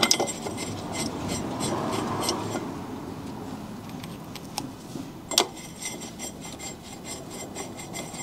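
Small metal hardware clinking and jingling as it is handled, with a rubbing sound in the first few seconds and a sharp metal knock about five seconds in.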